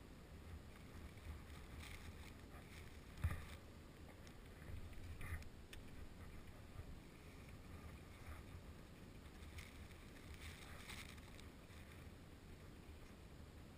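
Faint low wind rumble on an action camera's microphone, with a single knock about three seconds in and a few light rustles.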